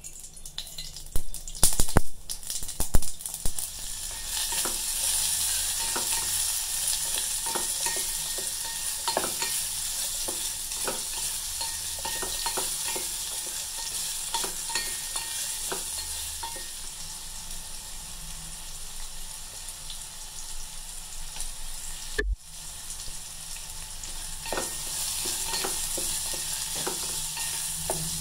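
Mustard seeds and urad dal crackling in hot oil in a steel pot, then diced raw mango sizzling as a wooden spatula stirs and scrapes it around the pan. A burst of loud crackles comes in the first few seconds; after that the sizzle runs on steadily under the stirring, with a brief break about two-thirds of the way through.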